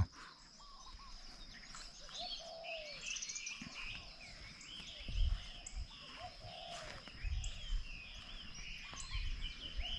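Small birds chirping and calling in short, repeated notes, with a steady high-pitched tone running beneath them.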